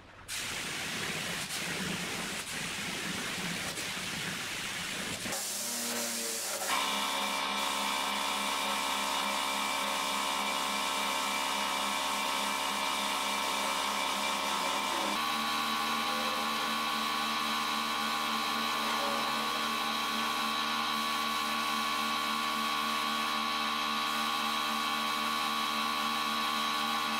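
Compressed-air spray gun hissing as wood finish is sprayed, with a steady machine hum of several tones joining about seven seconds in and shifting pitch around the middle.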